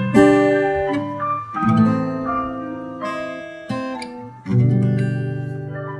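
Acoustic guitar strumming slow chords, three strokes; the last, about four and a half seconds in, is left to ring and fade.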